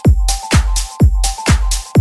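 Electronic dance music with a kick drum on every beat, about two a second, and a low bass note filling the gaps between the kicks.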